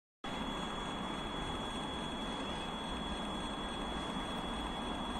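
Steady distant rumble of a freight train hauled by a VL80S electric locomotive, still far off on its approach, with a steady high-pitched whine running through it.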